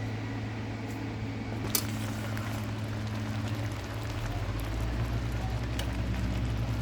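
Tomato pieces simmering in a little water in a covered kadai on the stove: a steady bubbling hiss over a low hum, with one sharp click a little under two seconds in.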